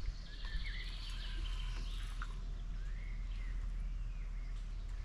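Small birds chirping, with short rising and falling calls and a fast trill in the first second, over a steady low rumble.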